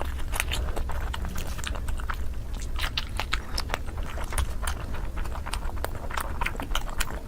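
Close-up chewing of dumplings: a fast, irregular run of wet mouth clicks and smacks, over a low steady hum.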